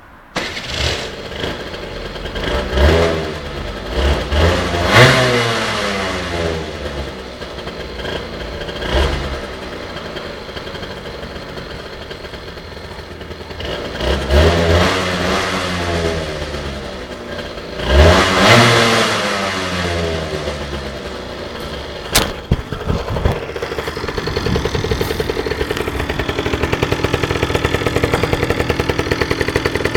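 Aprilia Tuono 50's two-stroke single-cylinder engine revved repeatedly through its exhaust, the pitch rising and falling with each blip and dropping back to idle in between. It comes in suddenly just after the start. From about two-thirds of the way through it runs steadier and evenly pulsing, with a sharp click just before.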